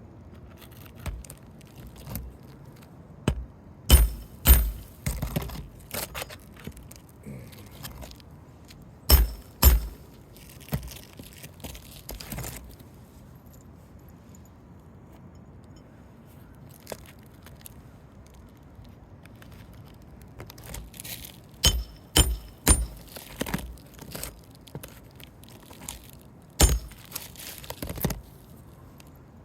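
Hammer striking a Roof Snake shingle nail-removal tool, metal on metal, driving it against a roofing nail under the shingles. The blows come in several groups of sharp strikes with pauses between, the loudest about 4 s and 9 s in and again from about 21 to 28 s.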